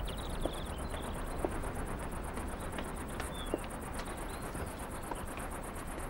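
Crickets chirping in a steady, rapid pulse, with a few faint clicks.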